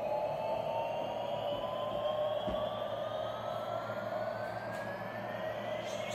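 Battery-operated light-up toy airliner playing its electronic jet-engine sound effect: a steady whine with a tone that climbs slowly in pitch.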